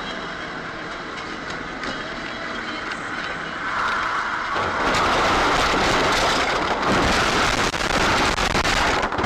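Car cabin rumble while driving at speed, then from about four seconds in a much louder rough rushing, crackling and scraping as the car leaves the road and ploughs through dry brush and small trees, branches scraping over the windshield and body.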